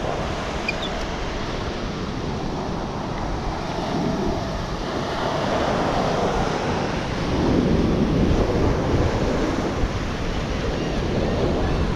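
Ocean surf washing onto the beach, with wind rumbling on the microphone; a wave swells louder about eight seconds in.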